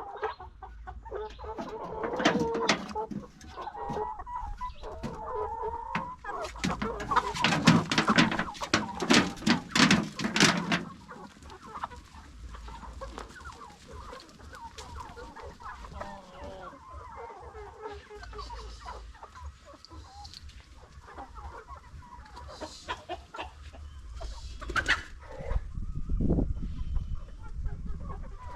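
Domestic chickens clucking. A dense run of sharp knocks or clatter, the loudest part, comes from about seven to eleven seconds in.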